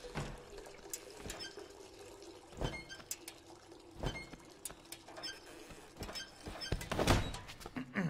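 Cartoon sound effect of a stream of urine pouring into a urinal, with scattered light knocks and clicks and a louder thump near the end.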